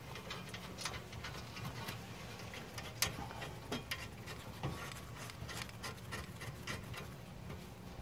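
Faint, scattered small metallic clicks and ticks of a brake caliper bolt being threaded in by hand, the sharpest about three seconds in, over a faint steady low hum.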